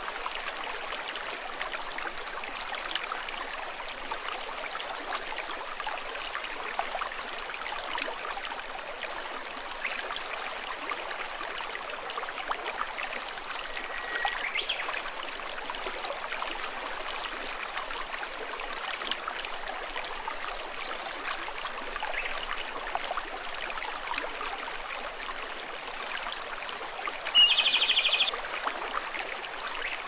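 Mountain stream running steadily, with a few faint bird calls. Near the end a Japanese robin sings a short, loud, rattling trill about a second long.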